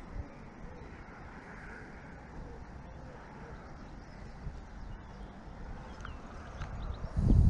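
Wind buffeting the microphone as a low, uneven rumble, growing much louder near the end.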